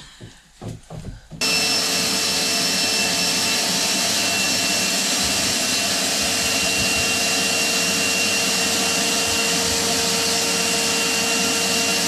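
A motor-driven machine comes on abruptly about a second and a half in and runs steadily at full speed, a loud even whoosh with a constant whine.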